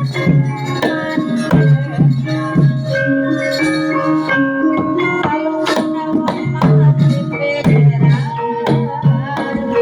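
Javanese gamelan playing: interlocking struck metal keys ringing over a steady pulse of low drum strokes.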